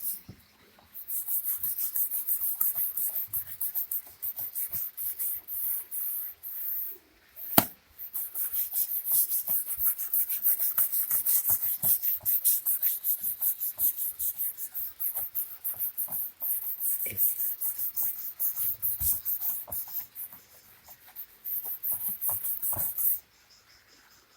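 Toothbrush scrubbing a soapy rubber fridge-door gasket in quick back-and-forth strokes, several a second, with short pauses, a sharp click about seven and a half seconds in, and a stop shortly before the end.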